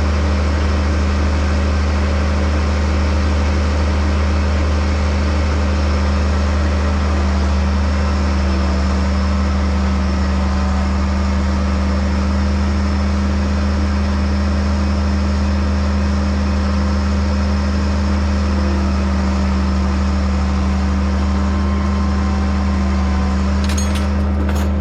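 Farm machinery's engine running at a steady speed, a constant low drone.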